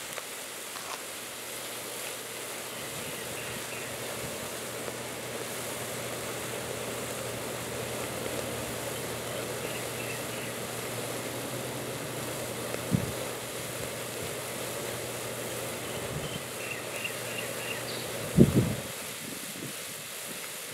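Salt-water brine boiling hard in a bucket, heated by 120-volt AC passed between two metal electrodes (an electrode boiler). It makes a steady bubbling hiss with a low hum underneath. There is a short knock about 13 seconds in and a louder thump about 18 seconds in.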